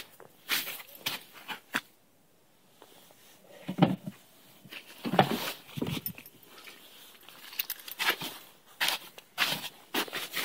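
Footsteps in snow with scattered knocks and rustles of handling as a person walks up to a car, with a few louder thumps midway. No engine is running.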